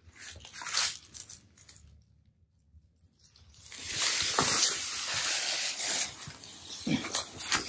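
Rustling and scraping in dry leaves and brush as a dead feral hog is handled. It goes almost silent for a moment about two seconds in, then a loud, steady, hiss-like scraping runs for about two seconds, followed by more light rustles and clicks.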